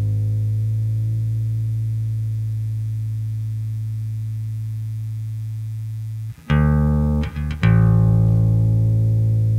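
Electric bass guitar being tuned: a low open string plucked and left to ring, fading slowly for about six seconds, then three quick plucks near the end, the last one left ringing.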